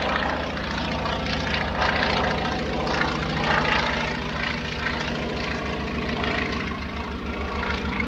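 An engine running steadily with a fast, low pulsing beat, cutting off suddenly at the end.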